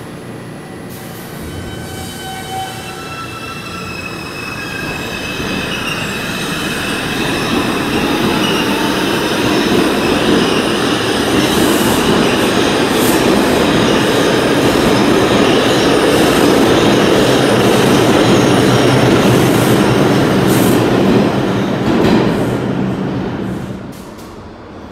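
New York City subway train running past the platform: electric motors whine upward in steps over the first few seconds, then the rumble of steel wheels on rail builds to a loud peak with a few sharp clacks from the rail joints, and drops away suddenly near the end.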